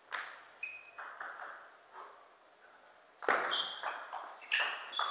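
Table tennis ball being struck by rackets and bouncing on the table, each hit a short sharp click, some with a brief ringing ping. A few light knocks are followed by a pause, then a quicker, louder rally from about three seconds in.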